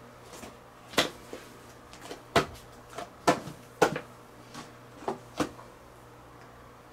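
Paper cup-ramen containers being touched and knocked on a tabletop by a hand feeling along them: a string of about eight light taps and knocks, irregularly spaced, ending about two thirds of the way through.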